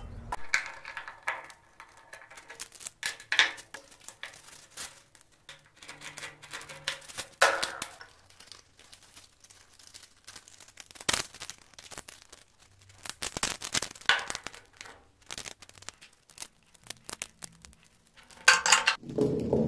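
Hands handling a homemade wooden sanding drum and its sandpaper: on and off crinkling of the paper, with light clicks and knocks of wood and small parts, including one sharp click about halfway through.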